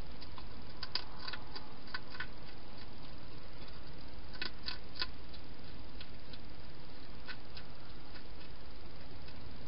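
A wild hedgehog eating from a bowl inside a plastic feeding box: irregular sharp crunching clicks, in small clusters over a steady hiss.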